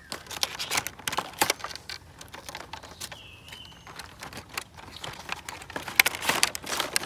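Cardboard and plastic packaging of a die-cast toy vehicle set being handled and opened by hand: rustling, crinkling and quick clicks, busiest in the first second and a half and again in the last second and a half.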